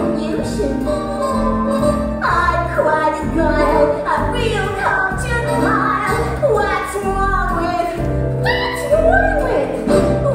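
A woman singing a musical-theatre song with instrumental backing, her voice gliding and wavering in pitch over sustained bass notes.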